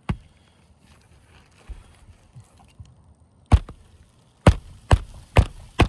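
Hand hammer driving a roofing nail under a lifted asphalt shingle into soft roof decking. One blow at the start, another about three and a half seconds in, then four quick blows about half a second apart near the end.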